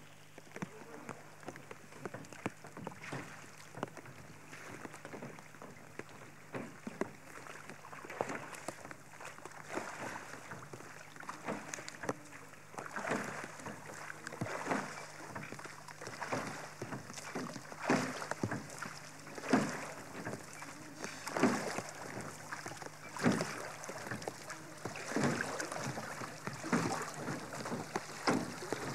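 Wooden oars rowing a small metal skiff: strokes splash and knock about once every two seconds, growing louder as the boat comes near.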